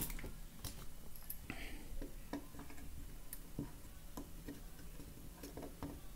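Faint, irregular small clicks and creaks of a hand gripping and pushing on a wooden clock case, straining to force the circuit board out.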